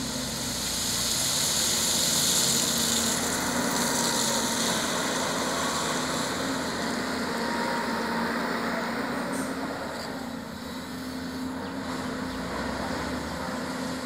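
Volvo EC210B crawler excavator working, its diesel engine running steadily with a droning hum. A high hiss is strongest for the first few seconds and then fades.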